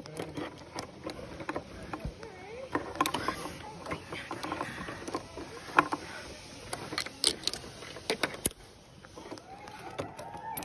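Clothing rustling against a chest-worn phone's microphone, with many short sharp clicks and knocks from climbing harness gear and ropes, the loudest about six seconds in.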